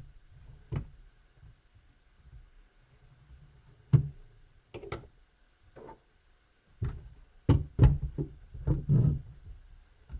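Scattered plastic clicks and knocks as a laptop keyboard is pried at its retaining latches, with the loudest knocks about four seconds in and again near the end.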